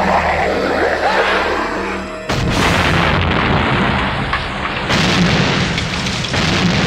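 Film soundtrack with music and explosion booms: a sudden loud boom a little over two seconds in and another change a few seconds later, with rumbling that carries on after each.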